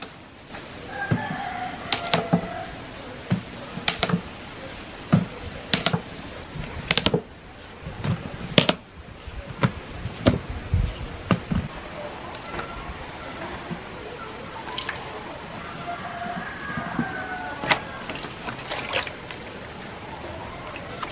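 Unripe saba bananas being snapped off the bunch by hand, a sharp crack every second or two. Near the end, the bananas are splashed and rubbed clean in a basin of water.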